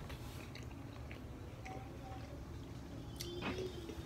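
Faint wet chewing of fried chicken, with a few small clicks.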